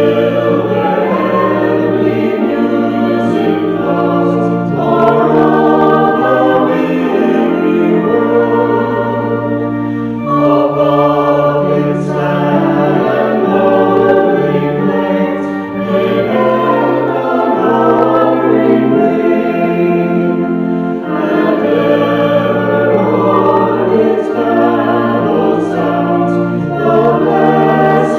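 A choir singing a Christmas hymn in sustained chords, with no speech.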